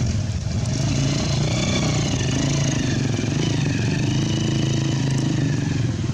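A small engine running steadily: a low hum with a higher whine that sinks in pitch toward the middle and climbs back near the end.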